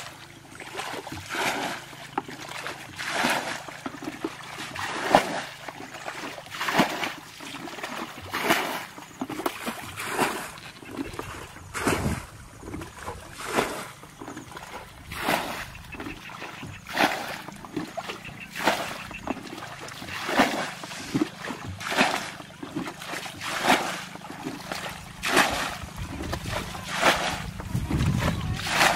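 Muddy water being bailed out of a shallow ditch with a plastic bucket: a scoop and splash repeated evenly about every second and a half to two seconds.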